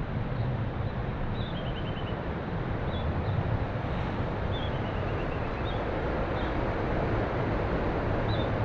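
Steady rushing of a fast mountain river over rocks. Small birds call faintly above it: scattered short chirps and, twice, a quick run of notes falling in pitch.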